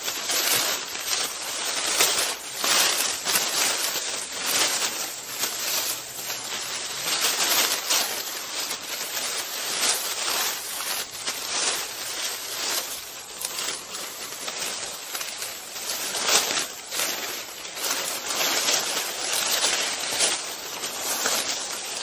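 Footsteps at a steady walking pace, about two steps a second.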